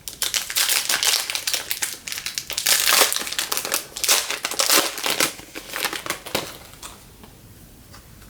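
Crinkling and crumpling of a trading-card pack wrapper as the pack is opened, in a dense run of crackles that dies away about seven seconds in.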